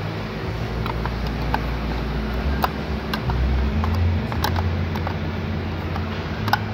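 Steady low hum of shop ventilation, with scattered light clicks and taps as a plastic roof-rack crossbar end cap is handled and pressed against the crossbar foot.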